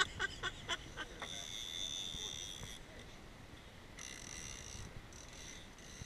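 Fishing reel whining in spells as line moves on it during a fight with a blue shark: a high steady whine for about three seconds, a short break, then again from about four seconds in. A few short squeaks in the first second.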